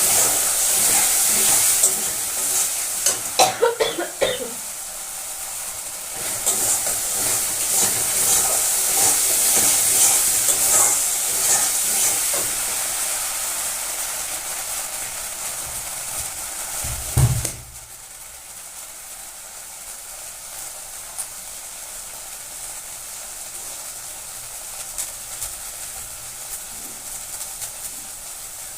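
Food sizzling in a hot pan, with a short burst of clattering about three to four seconds in. About seventeen seconds in there is a low thump and the sizzle cuts off, leaving a quieter steady hiss.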